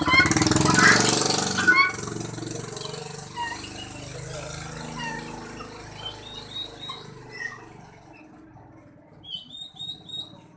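Chickens calling: a loud, harsh call for about the first two seconds, then scattered short chirps, with a quick run of high chirps near the end.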